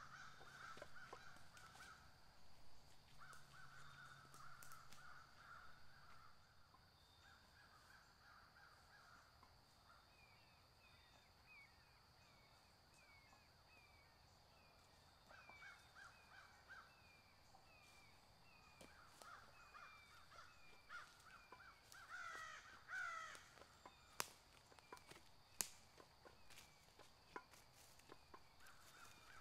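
Faint woodland ambience: crows cawing in short runs, with a small bird repeating a short down-slurred chirp about once a second from about a third of the way in, and a steady faint high insect hum. A few faint clicks near the end.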